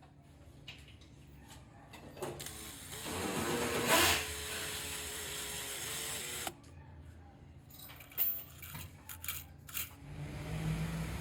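A small power tool runs with a steady whine for about four seconds and stops suddenly, followed by a few sharp handling clicks and a low hum near the end.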